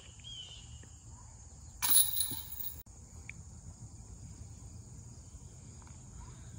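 A disc golf putt striking the metal chains of a basket: a loud, sudden chain rattle about two seconds in that dies away within a second. A steady high-pitched insect drone runs underneath.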